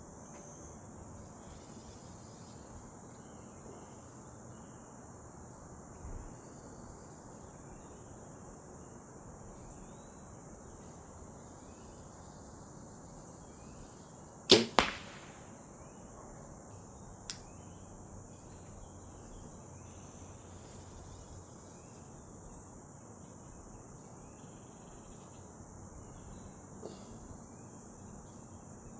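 A bow shot about halfway through: a sharp crack as the string is released, then a second hit about a third of a second later as the arrow strikes the target at 20 yards. A steady high insect chirring runs underneath, with a few faint clicks.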